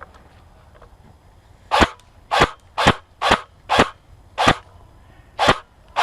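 Airsoft gun fired in single shots close to the microphone: about seven sharp cracks, roughly two a second, starting about two seconds in.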